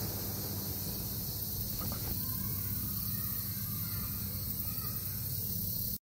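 Lakeside dusk ambience: a steady high hiss, as of insects, over a low steady hum, with a few faint short bird-like calls. It cuts off suddenly into silence near the end.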